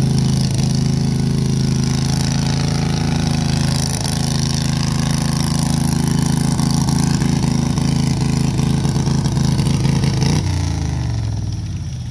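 Garden pulling tractor's engine running steadily under load as it drags a weight-transfer sled, then slowing about ten seconds in, its pitch dropping.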